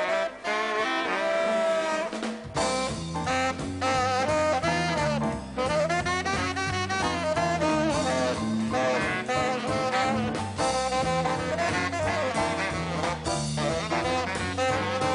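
Live boogie-woogie band with a tenor saxophone solo over electric bass and drums. The bass line comes in about two and a half seconds in.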